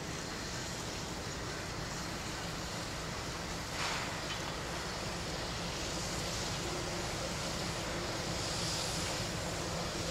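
Approaching train of two diesel locomotives with steam locomotive 5917 behind them: a steady low engine rumble under a noisy haze, slowly growing louder, with wind on the microphone. A short hiss comes about four seconds in.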